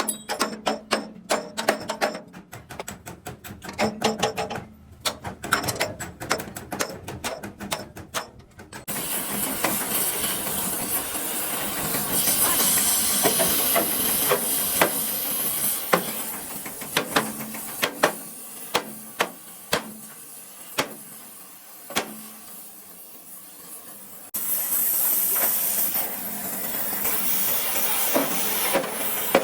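Rapid clicking and tapping for the first several seconds, then a loud steady hiss with scattered sharp knocks, easing off in the middle and starting again near the end.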